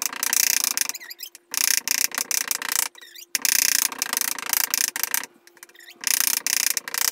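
Large kitchen knife rapidly chopping a raw fish fillet on a cutting board, mincing it fine. The blade strikes come in quick runs of about one to two seconds, with short pauses between them.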